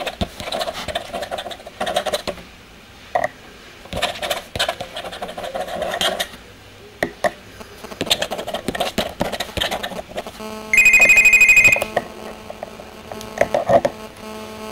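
Repeated scratchy strokes of a pen or brush dragged across paper, each lasting about a second. About ten and a half seconds in, a loud, rapidly trilling electronic ring sounds for just over a second, over a steady low hum that continues to the end.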